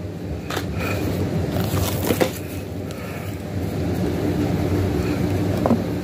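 A steady low hum, with a few brief clicks and rustles of small packaged items being handled: one near the start, one about two seconds in and one near the end.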